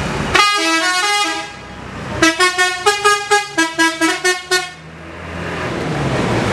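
Bus 'telolet' melody horn playing a tune: a short run of stepped notes lasting about a second, then after a pause a quick string of about a dozen short, clipped notes.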